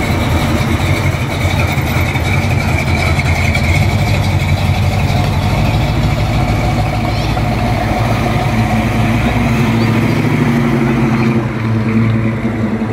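Oldsmobile 442 muscle car's V8 running with a low, steady exhaust note as the car rolls slowly past at low speed.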